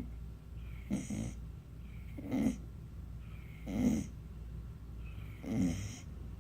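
Snoring in a steady rhythm: four rasping snores about a second and a half apart, with a faint whistling breath between them.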